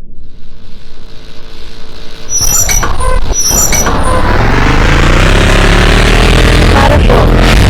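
Vehicle engine rumbling in about two seconds in, with a couple of sharp metallic clinks, then rising steadily in pitch as it revs up and pulls away.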